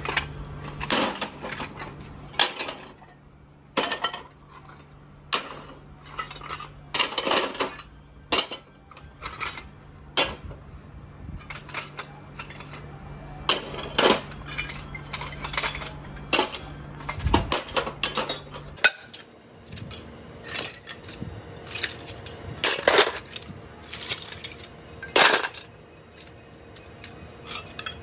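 Pieces of rusty iron scrap clanking as they are pulled from a scrap heap and dropped into a metal wheelbarrow, in irregular metallic knocks and clinks every second or so.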